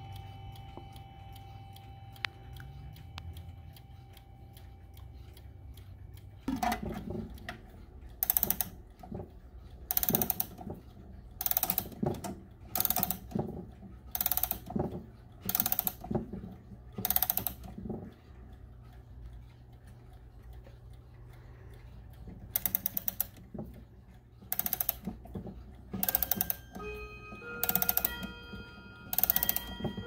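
Chime-rod tones of a Howard Miller triple-chime clock die away. Then a crank key winds the movement's mainspring in repeated turns, each a quick run of ratchet clicks about once a second, with a pause partway through. Near the end a few chime-rod notes begin to ring under the winding clicks.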